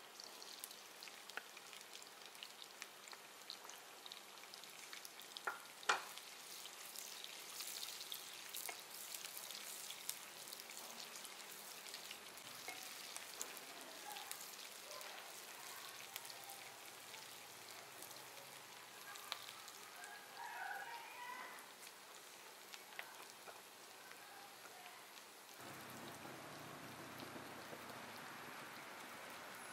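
Sliced red onions frying in hot oil in a steel pot: a steady crackling sizzle as they are stirred with a wooden spatula, with one sharp knock about six seconds in. The sizzle becomes fuller near the end as fenugreek seeds go into the oil.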